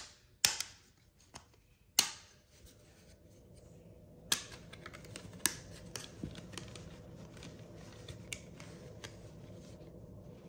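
Plastic parts of a multi-piece OtterBox phone case clicking and snapping as they are handled and fitted together: several loud sharp snaps in the first half, then softer ticks over a low rustle of handling.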